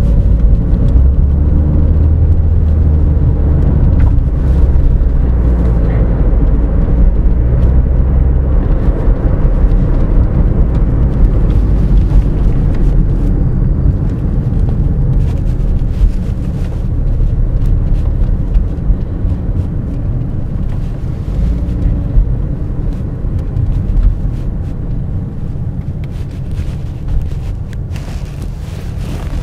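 Inside the cabin of a 2011 Toyota RAV4: its 2.0-litre four-cylinder engine and road noise during brisk driving, a steady low rumble. It is strongest for the first several seconds, then eases off as the car slows through turns.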